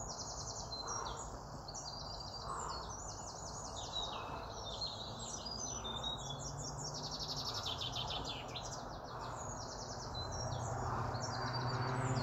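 Songbirds singing: many rapid trills and chirps overlapping throughout, over a steady low background hum.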